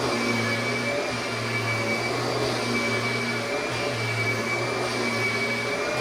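Kirby vacuum cleaner running steadily while vacuuming a mattress: an even motor rush with a constant high whine and a low hum that dips briefly about once a second.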